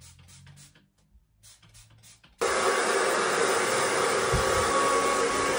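Handheld hair dryer switched on about two seconds in and running steadily, blowing on wet hair. A few soft rustles and handling noises come just before it starts.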